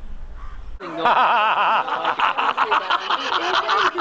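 A man laughing heartily in rapid, wavering pulses, starting suddenly about a second in.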